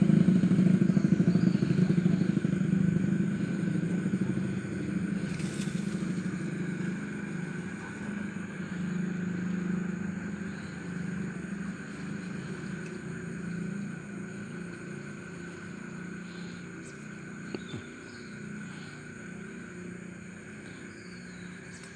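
A motor engine running with a steady low hum, fading gradually over about twenty seconds as it moves away.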